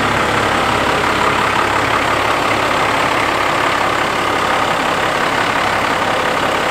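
12-valve Cummins inline-six diesel in a second-generation Dodge Ram idling steadily.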